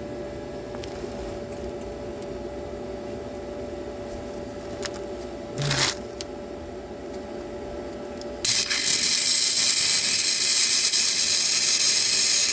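Flux-core MIG welding arc: a brief strike about six seconds in, then the arc crackles loud and steady for the last four seconds as a bead is run, over a steady hum.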